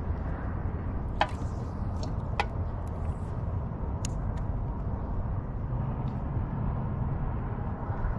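Steady low rumble of wind on the microphone over open water, with a few short sharp clicks about one, two and a half, and four seconds in.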